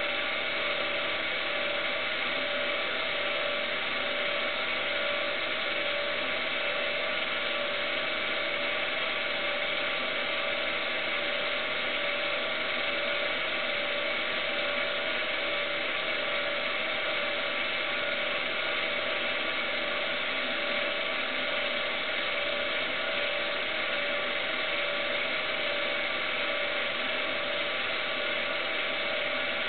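Steady mechanical whir and hiss from a small motor, even and unchanging, with several constant tones running through it.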